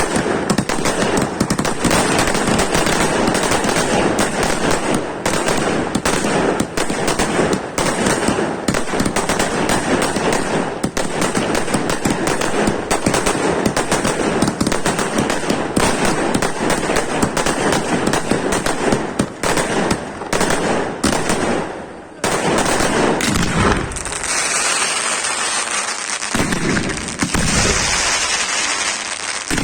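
Fireworks display: a dense, rapid barrage of firework bursts and reports, almost continuous like machine-gun fire. It thins out about two-thirds of the way in, giving way to a hissing crackle with scattered bangs.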